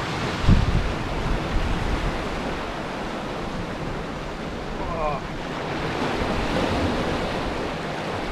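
Sea swell washing and breaking over rocks, a steady rush of surf, with wind on the microphone. A brief low thump about half a second in.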